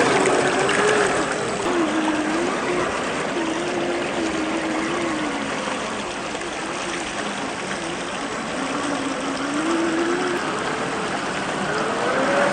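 Electric motor of a 1/10-scale RC crawler whining, its pitch rising and falling as the throttle changes, over a steady rushing noise of flowing water.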